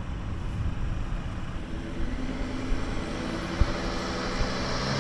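4x4's engine running under load as it tows a stuck van out of the mud on a strap; the engine note strengthens and rises slightly about two seconds in as the pull is taken up.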